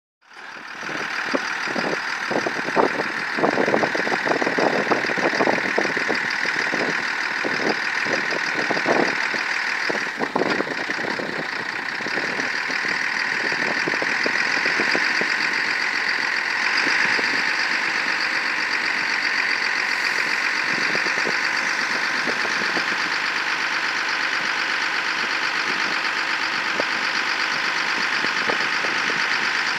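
MAN LE 12.220 truck's diesel engine running with a steady hydraulic whine as the Charvát CTS hooklift arm tilts up. Irregular knocks and clatter over the first ten seconds or so.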